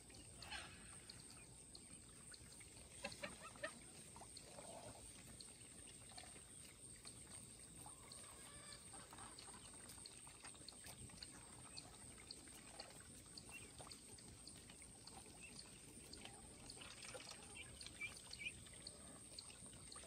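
Quiet outdoor ambience of geese and ducks grazing: soft clicks and rustles of bills pecking and tearing grass, a few louder clicks about three seconds in and again near the end, over a faint high ticking about twice a second.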